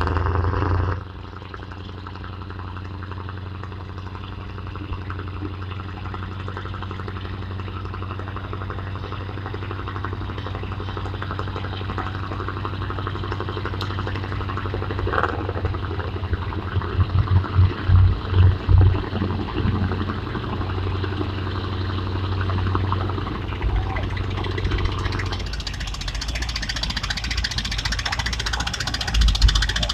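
A steady low engine hum with a faint wash of noise above it. A run of low thumps comes about two-thirds of the way through, and the hum drops away near the end.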